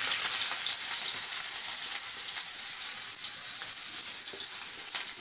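Freshly chopped onion sizzling in hot oil with mustard and fennel seeds in a kadai: a steady high hiss that eases slightly over the seconds.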